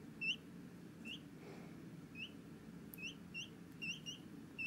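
Week-old peachick cheeping: short, high peeps at irregular intervals, about one every half second, some in quick pairs and coming closer together toward the end.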